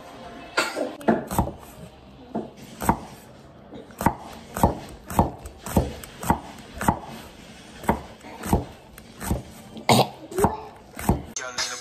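Chinese-style cleaver slicing jalapeño peppers on a wooden cutting board, each cut ending in a knock of the blade on the board. The knocks are irregular at first, then settle into a steady run of about two a second.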